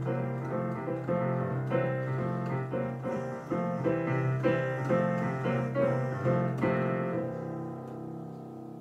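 Digital piano played with a steady run of chords, about two a second, over a held bass note. About seven seconds in the playing stops on a closing chord, left to ring and fade away.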